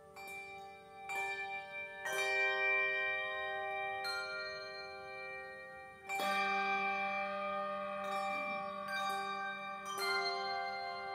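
Handbell choir ringing chords of bronze handbells: a new chord struck every one to two seconds, each one ringing on and overlapping the next, the fullest chords about two and six seconds in.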